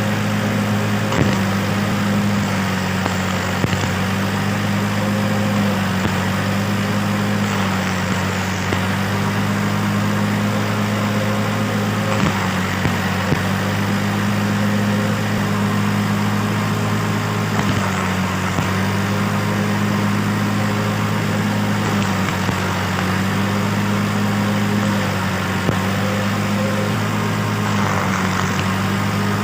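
Stick (arc) welding setup: a steady, loud low buzzing hum with a crackling hiss over it and a few small clicks.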